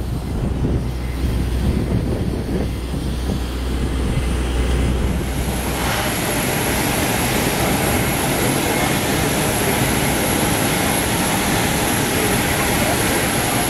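Wind buffeting the microphone with a low rumble. About five seconds in it gives way to a steady aircraft turbine whine over a loud rushing hiss on an airport apron.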